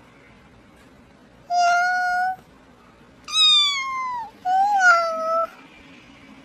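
A cat meowing three times, each call about a second long: the first held level, the second sliding downward, the third rising and then falling.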